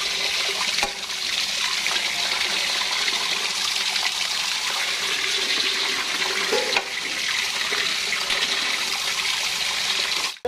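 Steady running water splashing onto a raw pig's head in a stainless steel basin as it is rinsed. The water stops abruptly near the end.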